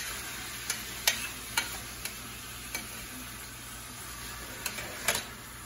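Pork pieces with garlic and onion sizzling in a stainless steel pan while a spoon stirs them, with a steady hiss and the spoon clicking against the pan now and then, a little more busily near the end.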